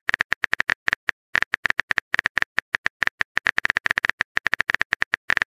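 Phone keyboard typing sound effect: rapid, uneven clicks, several a second, one for each letter as a text message is typed.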